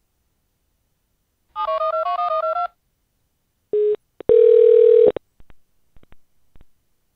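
Touch-tone telephone dialing: a quick run of about ten dual-tone keypad beeps as a number is dialed to place a call. A short beep and then a loud steady line tone follow for under a second, and a few faint clicks come after it.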